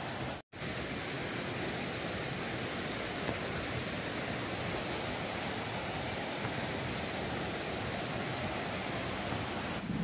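Steady rushing of a mountain stream flowing over rocks, with a momentary break in the sound about half a second in.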